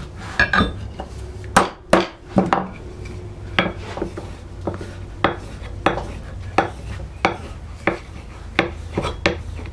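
A tulip poplar strop paddle charged with polishing compound being swiped along a hatchet's steel bevel to strop the edge after honing. It makes short, sharp scraping strokes of wood on steel, about one and a half a second, evenly repeated.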